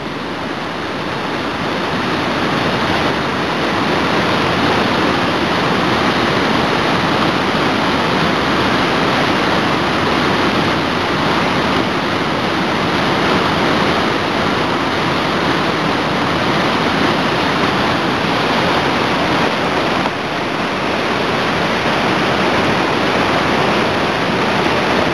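Whitewater rapids on a river, rushing loudly and steadily over rocks.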